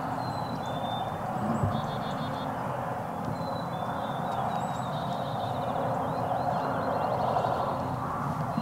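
Songbirds chirping and trilling in spring woods: quick runs of short repeated notes and brief rising and falling whistles, over a steady hiss that is louder than the birds.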